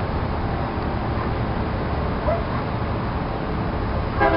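Steady outdoor background noise with a low rumble, and a few faint, short rising whines from a dog. A brief louder bark or yelp comes near the end.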